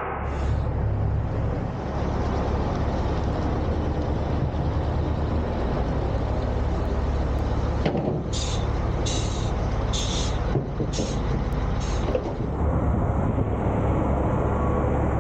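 Peterbilt semi truck's diesel engine idling steadily, heard from the cab, with five short air hisses about one a second, about two-thirds of the way through.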